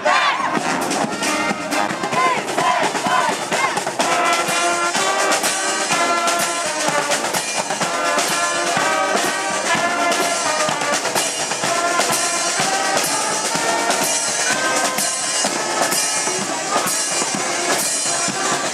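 A street brass band playing on the march: trumpets and trombones holding notes over marching drums with a steady beat.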